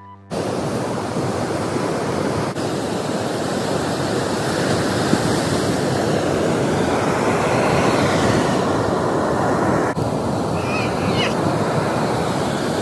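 Ocean surf breaking and washing up a sandy beach: a loud, steady rush of waves that dips briefly twice.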